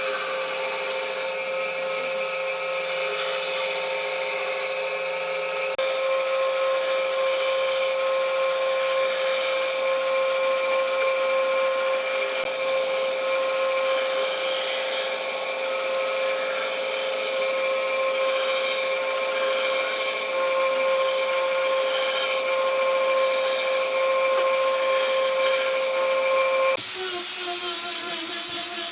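Electric power tool running with a steady high whine as it works wood, over a rough rubbing noise. The sound changes abruptly about six seconds in and again near the end.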